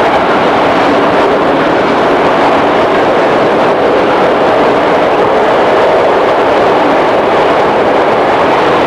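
Running noise inside a JR East 211 series electric multiple unit's motor car: a steady, loud rumble and rush of the wheels on the rails and the running gear at speed.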